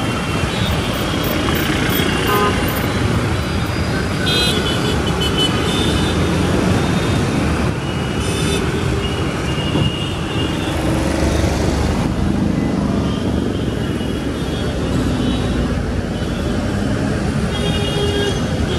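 Busy city street traffic: a steady din of car, taxi and motorbike engines and tyres, with short horn toots sounding several times.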